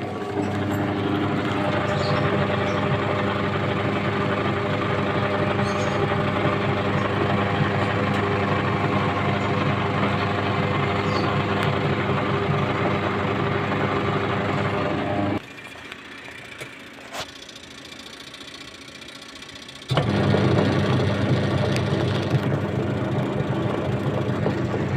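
Washing machine motor running with a steady hum. About fifteen seconds in it stops for roughly four and a half seconds, then starts up again.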